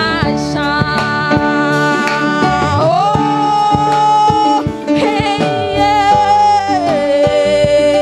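Live band music with a woman singing into a microphone, backed by guitar, keyboard and drums. Long sustained notes, one sliding up about three seconds in and holding.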